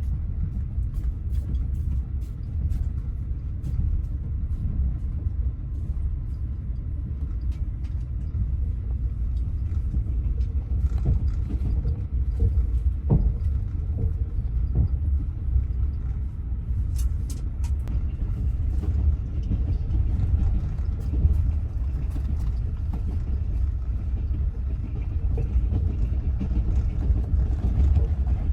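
Passenger train carriage in motion: a steady low rumble with occasional light clicks and knocks.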